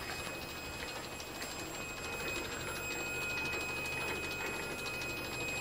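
A small mechanism running, with rapid faint ticking over a steady high whine.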